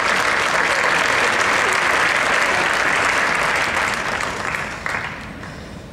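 Audience applauding, steady at first and then dying away after about four seconds.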